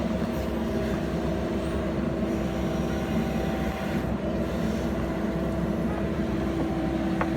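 JCB backhoe loader's diesel engine running steadily, a constant loud drone with an even pitch.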